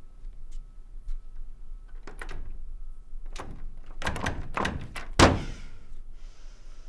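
A door being rattled and thumped in its frame: a run of knocks and thuds, the loudest one a little after five seconds in, as of someone trying a locked door.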